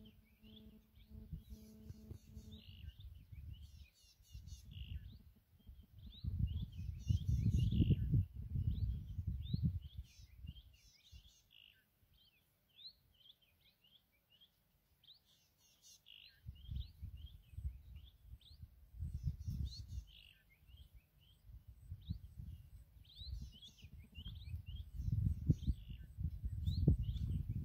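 Small birds chirping and calling in quick, short notes throughout, over a steady outdoor background. Gusts of low, rumbling noise come in about six seconds in and again from about sixteen seconds to the end, and are the loudest sound.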